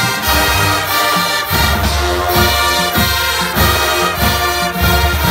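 High school marching band playing a rock-era tune at full volume: massed brass holding sustained chords over a heavy beat from the drums.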